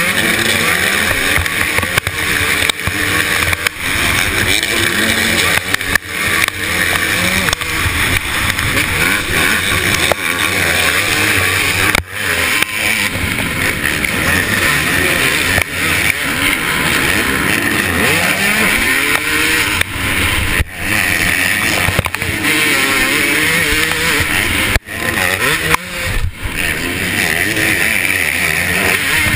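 KTM 250SX two-stroke motocross engine heard from an onboard camera, revving up and down hard through the race, with several brief dips in level.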